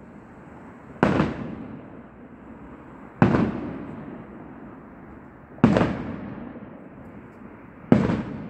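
Aerial firework shells bursting: four sharp bangs roughly two seconds apart, each followed by a rolling echo that fades away.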